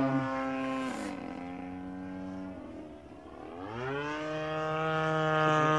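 Single-cylinder two-stroke DLE 35cc petrol engine of an RC bush plane in flight. Its note drops in pitch about a second in and fades to its quietest near the three-second mark. It then climbs back up in pitch and holds steady.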